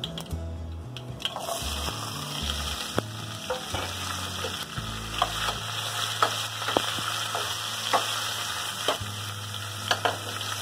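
Sliced onions and green chillies sizzling in hot oil in a steel pot, the hiss rising sharply about a second in. A metal spatula clicks and scrapes against the pot now and then as they are stirred.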